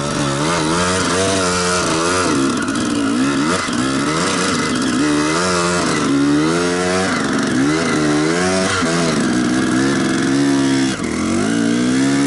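Enduro motorcycle engine revving up and dropping back over and over, its pitch climbing and falling roughly once a second.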